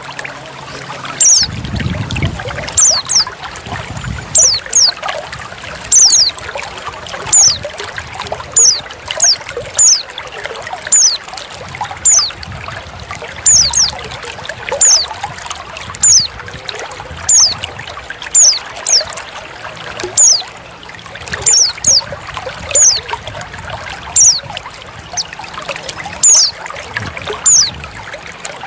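Trickling water runs steadily under a female white-eye's (pleci's) call. The bird gives a short, high, downslurred note about once a second. This recording of a female calling is used as a lure to get a male white-eye singing.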